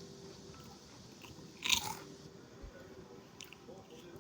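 A person biting into crisp food once, a single short crunch a little under two seconds in, with faint chewing around it.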